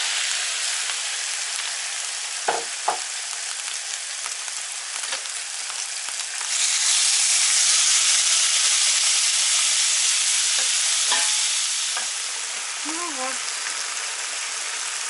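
Raw pork pieces sizzling as they fry in a hot frying pan while being turned, with two sharp clicks about two and a half seconds in. The sizzle grows louder about halfway through, then eases off.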